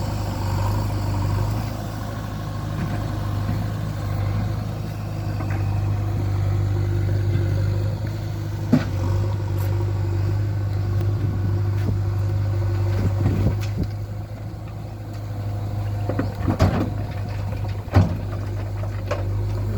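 JCB 3DX backhoe loader's diesel engine running steadily at a low drone, with a handful of sharp knocks, stone or metal impacts, spread through the second half.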